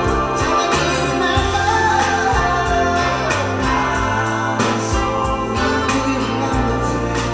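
Music: a song with singing over a steady drum beat and a bass line.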